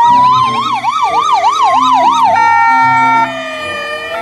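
Electronic ambulance siren, loud: a fast warbling yelp over a slow rising-and-falling wail, changing a little over two seconds in to steady held tones as the wail slowly falls.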